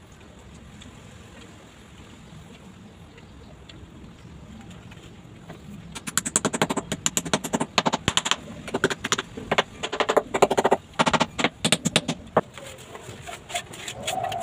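Rapid scratchy scraping strokes of a hand tool worked across freshly laid broken ceramic tiles and mortar, starting about six seconds in and running for about six seconds. Near the end a chicken calls once.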